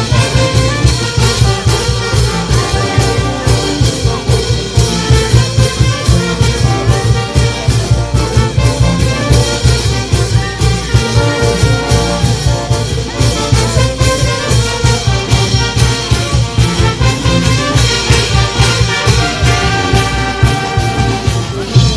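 Village brass band playing a tune: trumpets and other brass over a steady beat of drums and cymbals.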